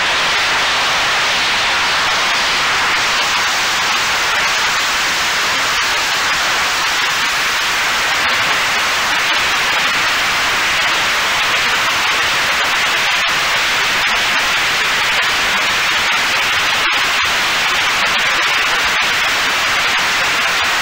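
Steady, loud static-like hiss on the audio of a Mini Talon FPV plane's onboard camera in flight, with no clear motor tone above it.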